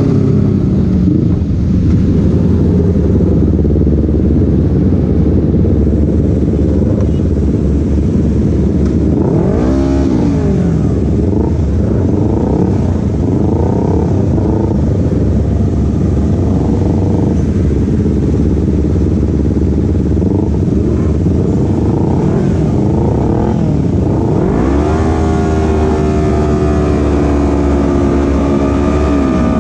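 Motorcycle engine running on the road under a steady low rumble of wind and road noise. The engine pitch rises and falls about ten seconds in, then climbs about 25 seconds in and holds high before dropping near the end.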